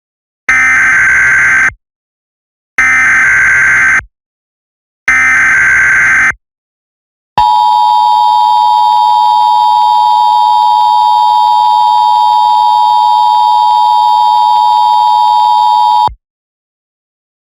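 Emergency Alert System header tones: three blasts of SAME digital data, each about a second and a bit long with a short gap between, followed by the EAS attention signal, a steady dual-tone sound held for about nine seconds that cuts off suddenly.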